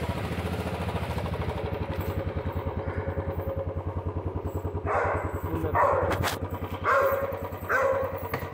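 Motorcycle engine running at idle with a steady, rapid, even beat. From about five seconds in, a dog barks several times over it.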